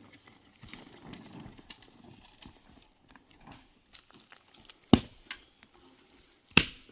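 Faint scattered clicks and rustling, then two sharp knocks, about five seconds in and near the end.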